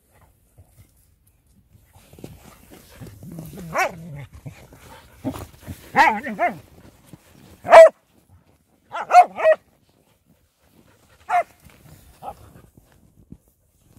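A dog barking during play in the snow: about ten short barks in clusters of one to three, the loudest nearly eight seconds in.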